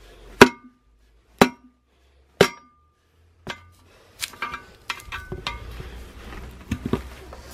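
Hammer striking a steel tire lever three times, about a second apart, each blow ringing metallically as it drives the lever between the bead of a hardened old tire and the steel wheel rim. A lighter knock follows, then a run of quick metal clinks and scraping as the lever is pried against the rim.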